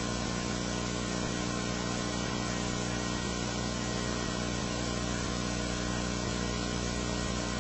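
Steady drone of an Apache helicopter's engines and rotor, unchanging throughout, with a constant hum of several steady tones.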